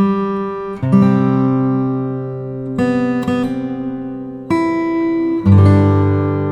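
Acoustic guitar playing slow strummed chords: a new chord about every one to two seconds, each left to ring and fade.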